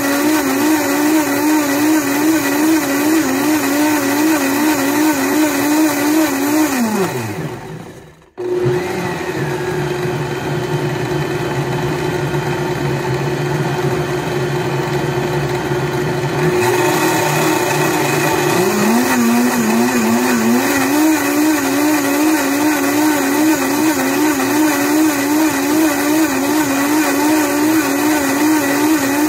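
Blendtec blender blending kava powder in water on a Medium High cycle, its motor running with a regular waver in pitch. About seven seconds in the motor winds down and stops briefly, the short break the cycle takes. It then runs on at a lower speed and ramps back up to full speed about eighteen seconds in.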